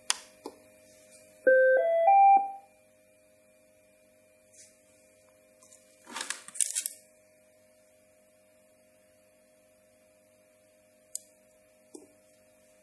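Bistos BT250 fetal doppler unit beeping on: a short rising tune of about four electronic tones about a second and a half in, then a few clicks and a brief rustle of handling around six seconds in. The unit sounds its own beeps, but with a broken wire in the probe's connector cable it gives no Doppler sound.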